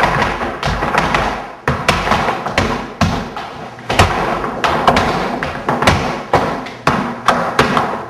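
Flamenco shoes striking a wooden floor in footwork: sharp heel and toe strikes in irregular rhythmic runs, with music playing underneath.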